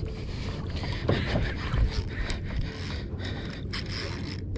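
Shimano Ocea Jigger 2000NRHG conventional jigging reel being cranked against a hooked fish, its handle and gears giving scraping, mechanical clicks, over a steady low rumble.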